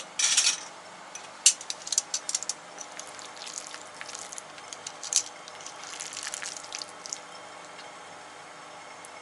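Cooking oil heating in a frying pan on a gas burner, crackling and spitting in scattered sharp pops. The pops are busiest a couple of seconds in and again around six to seven seconds, and settle near the end. A short noisy burst comes at the very start.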